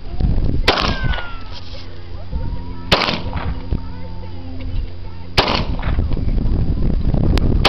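Taurus PT92 9mm semi-automatic pistol fired three times in slow single shots, about two and a half seconds apart, each shot followed by a short echoing tail.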